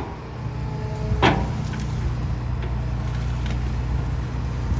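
John Deere 245G excavator's diesel engine running steadily, with one sharp knock about a second in.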